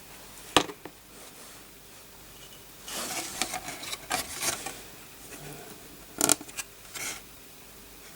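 Small handling noises from the damaged motherboard and tools being picked up and picked at: a sharp click about half a second in, a run of scratching and tapping clicks a few seconds in, and a few more clicks near the end.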